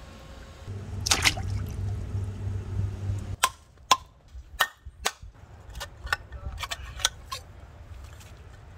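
A steel knife knocking against a queen conch shell: a run of about ten sharp clicks over some four seconds, the first two the loudest. Before them, a low steady hum.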